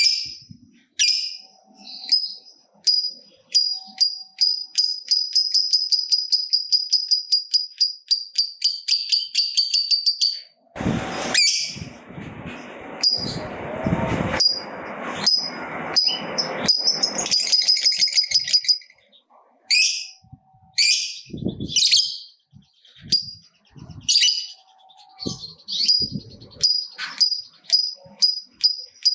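Lovebird chattering in rapid, sharp, high-pitched calls, running into a long unbroken trill, the prized "ngekek panjang" song, for about five seconds. Midway, a loud rushing noise with a few knocks cuts in for several seconds before the chattering resumes.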